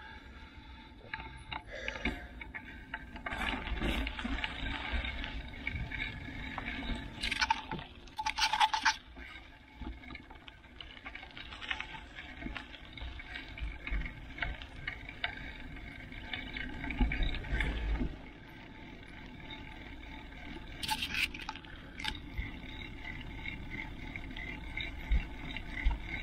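Mountain bike rolling along a dirt trail: tyres crunching and scraping over the dirt and gravel, wind buffeting the microphone in a low rumble, with scattered knocks and rattles and a brief squeal about eight seconds in.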